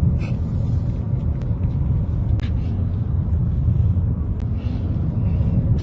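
Car driving, with a steady low road-and-engine rumble and a few light ticks scattered through it.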